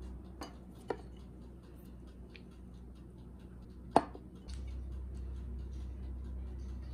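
Tableware clinks: two small clicks in the first second, then a sharp knock about four seconds in as a glass mug is handled on the table. A faint, regular ticking and a low hum run underneath, and the hum gets louder about half a second after the knock.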